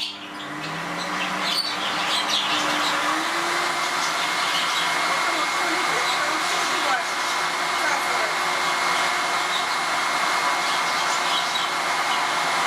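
MIE Ecologico water-filter vacuum cleaner switching on: its motor spins up with a rising tone over the first few seconds, then runs steadily, an even rush of air with a high whine.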